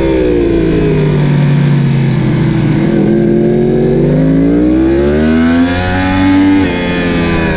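Yamaha YZF-R1 sport bike's inline-four engine heard from on board at racing pace, over wind rush. The engine note falls as the bike slows into a corner, then climbs steadily as it accelerates out, with a brief break and a drop in pitch near the end.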